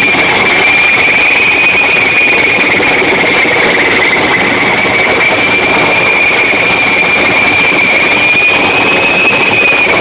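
Erickson S-64 Air-Crane heavy-lift helicopter hovering low: a loud, steady high turbine whine that wavers slightly in pitch, over the rush of the rotor.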